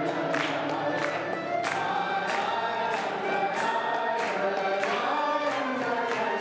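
A man sings a Hebrew song into a microphone to acoustic guitar, with a congregation singing along and clapping in time, about one and a half claps a second.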